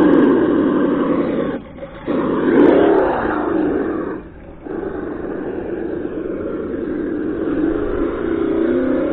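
Traxxas Summit RC truck's ESS engine sound box playing a simulated engine note from its small speaker, revving up and down as the truck drives, dropping away briefly twice: near two seconds in and about halfway through.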